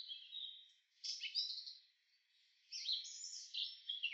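Small birds chirping, faint: quick runs of short high notes in three spells, broken by two brief pauses.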